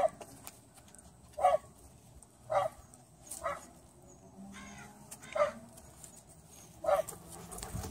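A dog barking repeatedly: about six short, sharp barks at uneven gaps of one to two seconds.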